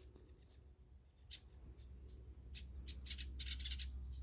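Nestling birds chirping in quick, high-pitched series, faint at first and growing busier from about two and a half seconds in.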